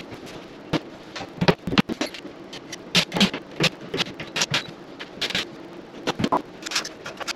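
Irregular clicks, taps and scrapes of a metal light-fixture mounting plate and its screws being handled and fastened to a wall.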